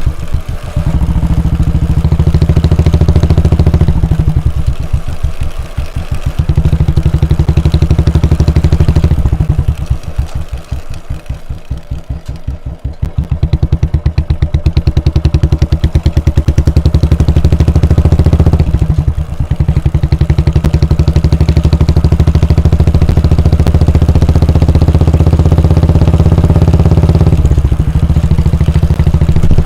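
Royal Enfield Bullet 350's 349 cc air-cooled single-cylinder engine running on the move, its exhaust note dipping briefly several times. Around the middle it eases off and the separate firing thumps come through, then it pulls again.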